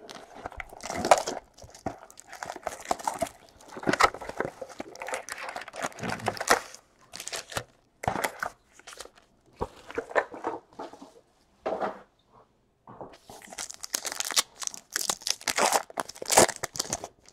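A cardboard trading-card box being opened and its foil-wrapped card packs taken out and stacked by hand: irregular crinkling and rustling of the wrappers, with tearing, in short bursts and pauses.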